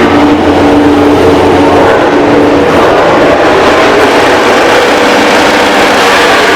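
MotoGP race motorcycle engine running at high revs and holding a steady pitch, as when launch control pins the revs for a practice start, with the engine note shifting and blending partway through.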